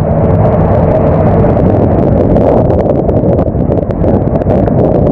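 Storm noise on a longline fishing boat's deck at sea: wind buffeting the microphone in a loud, steady, low rumble, with scattered small ticks from rain and spray in the second half.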